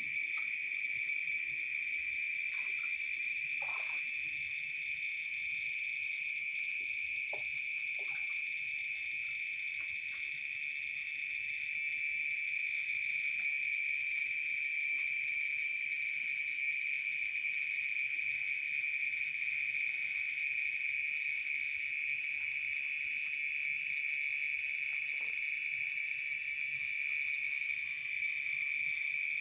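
Night insect calling from a tree: an unbroken, high-pitched, steady trill. A few faint short calls from another animal come in briefly behind it.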